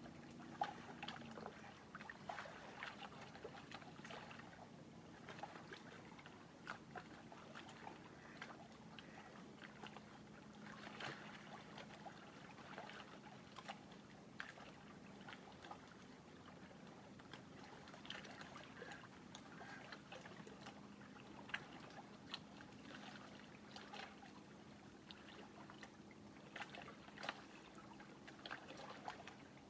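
Faint lapping of small lake waves, with irregular soft plinks and splashes of water at the shore. A faint steady low hum runs underneath.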